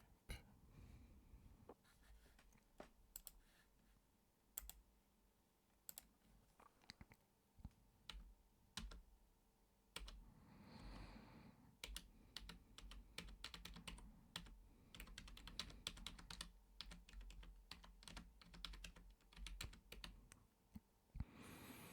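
Typing on a computer keyboard: scattered keystrokes at first, then quicker, steadier runs of typing through the second half.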